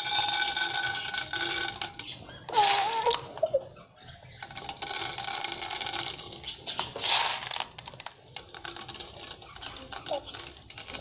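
Popcorn kernels clicking and rattling against the aluminium bottom of a pressure cooker as they are dropped into hot oil and spread by hand, over a sizzle from the oil. The clatter comes in several runs, easing off near the end.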